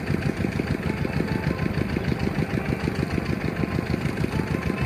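An engine running steadily at idle, a fast even chugging of roughly ten beats a second.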